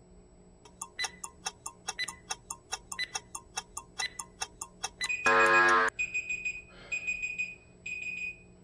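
Workout interval timer ticking down fast, about five ticks a second with a stronger tick on each second. Near the halfway point the ticks give way to a loud buzzer marking the end of the work interval, then three short high beeps about a second apart.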